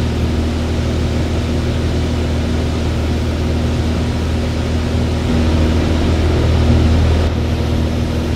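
Van's RV light aircraft's piston engine and propeller heard from inside the cockpit in cruise flight: a steady low drone with airflow noise, growing a little louder around six seconds in.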